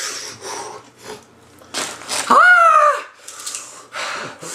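A person in pain from habanero heat: sharp breaths hissing in and out, and about two seconds in one loud wordless cry that rises and then falls in pitch.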